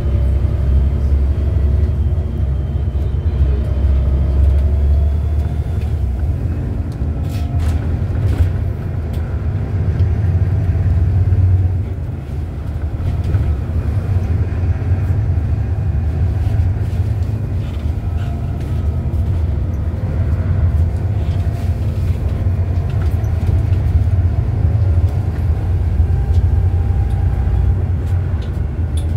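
Volvo B7TL double-decker bus with a 7.3-litre Volvo D7C diesel engine, heard from inside the upper deck while under way: a steady low rumble with faint whining tones above it and a few rattles about seven to eight seconds in. The engine eases off briefly about twelve seconds in, then builds again.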